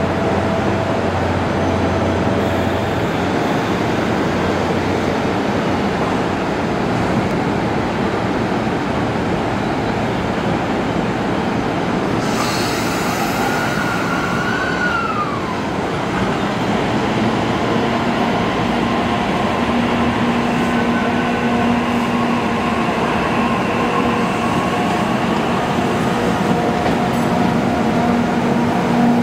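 Train running at a railway station: a steady rumble of wheels and machinery, with a short falling whine about halfway through and a steady hum that comes in a little past halfway.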